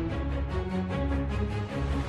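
Background music: an instrumental track with held notes over a low bass line and a soft beat.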